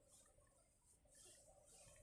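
Near silence: faint room tone with a few soft hissing puffs.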